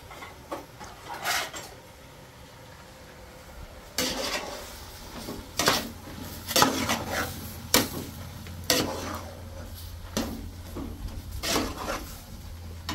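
Irregular knocks and clatters of hard objects being handled. A couple come in the first second or so, then louder ones follow roughly a second apart from about four seconds in.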